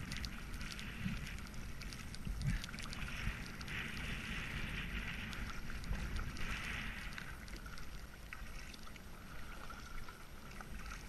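Kayak paddle strokes, the blades dipping and pulling through river water with a splash every two or three seconds and faint drips between, over a steady low rumble.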